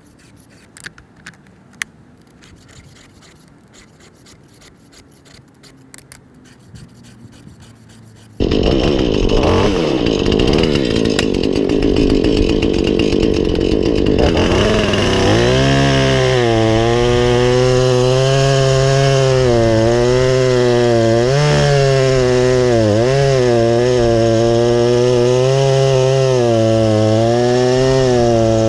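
Faint clicks over quiet ambience, then a Husqvarna chainsaw starts suddenly and runs loud, cutting wood, its engine pitch rising and dipping with the load.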